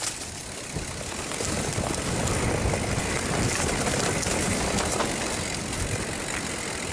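A mountain bike riding down a rocky trail: wind rushing over the microphone together with tyre and frame rattle, a steady noise that builds over the first two seconds as speed picks up.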